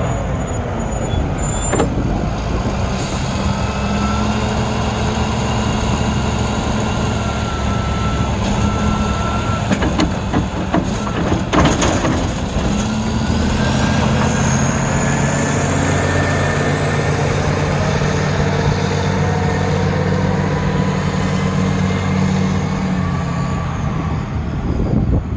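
Caterpillar 980B wheel loader's diesel engine running under load while plowing snow, its pitch shifting as the machine works. A short run of knocks comes about ten to twelve seconds in.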